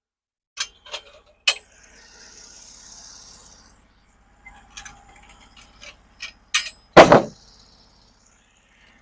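Scattered knocks and clatter of lumber being handled at the sawmill, with one heavy thump about seven seconds in.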